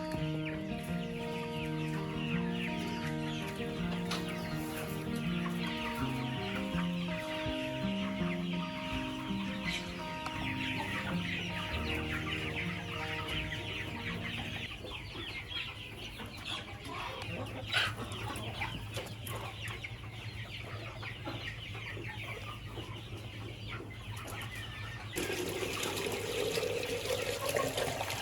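Chickens clucking and chirping steadily, with background music playing a simple melody through the first half. Near the end a noisy whirring sound starts suddenly, its pitch rising.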